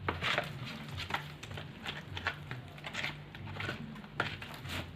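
Irregular wet squishing and scraping strokes of a utensil stirring glue slime in a bowl as the borax solution makes it thicken and clump, with a low steady hum underneath.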